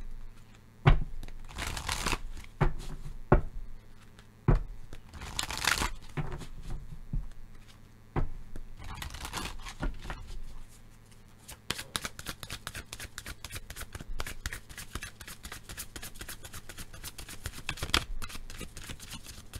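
A deck of oracle cards shuffled by hand: a few knocks and short sliding swishes of the cards in the first ten seconds, then a fast, steady run of fine card clicks from about eleven seconds on.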